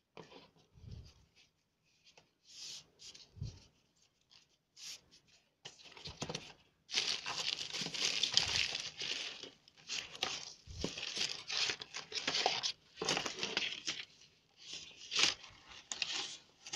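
Crumpled packing paper crinkling and rustling as it is pushed aside in a cardboard box, loudest and densest in the middle stretch. Light clicks and a couple of dull knocks from kit pieces being handled come before it.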